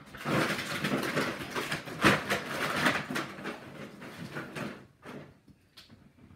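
Toy packaging being handled and opened: a dense rustling and crinkling with sharp clicks, thinning out to a few clicks and stopping about five seconds in.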